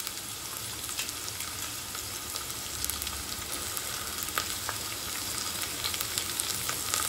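Chopped carrots, green beans and capsicum sizzling steadily in hot oil in a kadai, with a few light clicks of the steel spatula against the pan as the vegetables are stirred.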